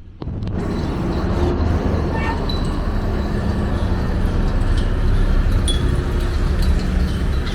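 Steady motor-traffic rumble with a few light metallic clinks, cutting in abruptly at the start.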